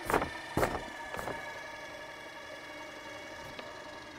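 Cordless impact driver spinning a greenhouse roll-up curtain gearbox, a steady motor whine as the curtain pole winds the fabric up. Three sharp knocks come in the first second and a half.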